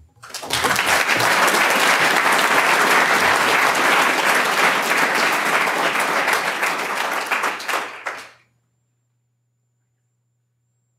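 Audience applauding, a dense steady patter of many hands clapping that stops abruptly about eight seconds in.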